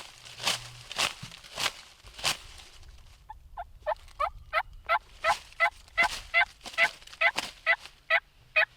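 Turkey yelping: four harsh, scratchy strokes, then a run of about sixteen yelps, roughly three a second, growing louder.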